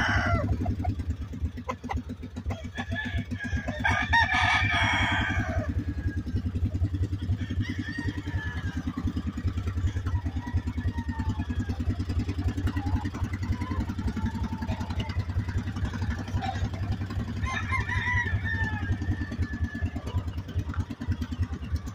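Game roosters crowing: one crow right at the start and a longer one a few seconds in, then fainter bird calls. Under it runs the steady low idle of a small utility vehicle's engine.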